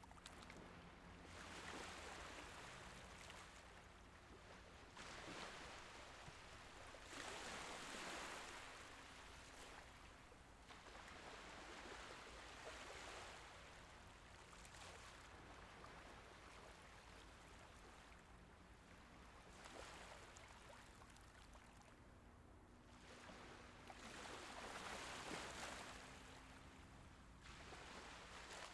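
Faint, gentle Mediterranean waves washing in and out, a soft swell of surf every three to five seconds.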